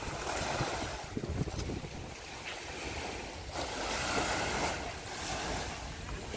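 Sea breeze buffeting the microphone: a low, gusty rumble with a hiss that swells and fades a few times.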